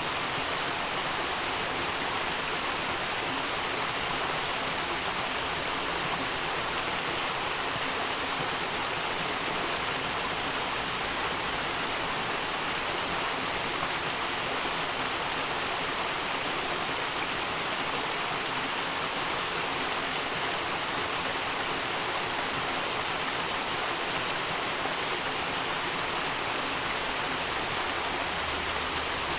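Small wild mountain stream rushing and splashing steadily, an even, unbroken sound of flowing water.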